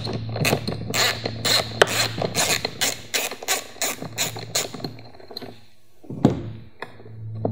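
Small hand screwdriver backing out the screws that hold a mass airflow sensor to a plastic air box, giving a regular series of sharp clicks about three a second that stops about five seconds in, followed by a single knock a little after six seconds.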